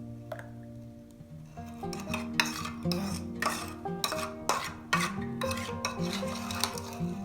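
A kitchen utensil stirring and clinking against a dish, with about two knocks a second starting about two seconds in. Soft background music with held notes plays underneath.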